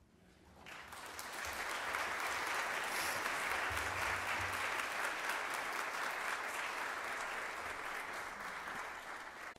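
Church congregation applauding: the clapping builds over the first couple of seconds, holds steady, then cuts off suddenly near the end.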